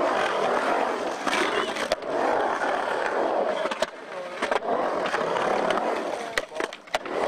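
Skateboard wheels rolling on a concrete bowl, a steady roar that swells and fades as the skater carves up and down the walls. Several sharp clacks of the board come through it, some near the middle and a couple near the end.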